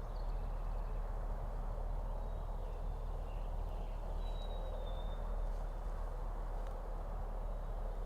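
Steady outdoor background noise, with a faint, thin, high bird call about four seconds in.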